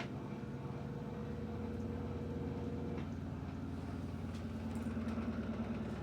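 Electrolux LED14 washing machine in its spin cycle: the motor and drum run with a steady hum, and a higher steady tone drops out about halfway through.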